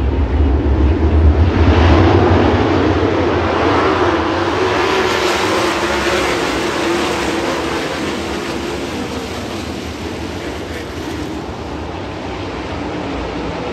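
A pack of winged sprint cars racing past on a dirt oval, their V8 engines at full throttle. The din swells about a second and a half in as the field goes by, then slowly fades as the cars move away.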